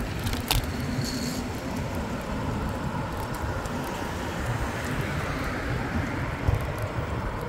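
Wind noise on the microphone of a bicycle ridden along a road, mixed with road and car traffic noise. A sharp click comes about half a second in.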